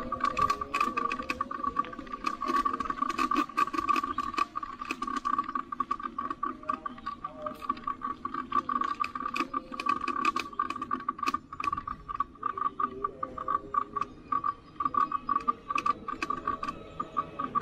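Rapid, irregular clicking and rattling from a bicycle being ridden on a road, over a steady high-pitched whine.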